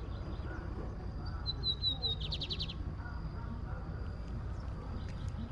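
Lined seedeater (bigodinho) singing one short phrase about a second and a half in: a few high, clear notes stepping slightly down, then a fast trill. A steady low rumble runs underneath.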